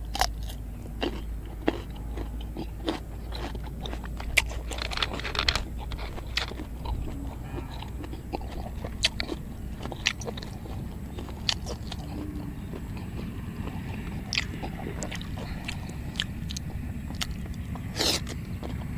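A person eating close to the microphone: a bite into a raw cucumber, then continual chewing and crunching, with many short sharp crunches scattered through it.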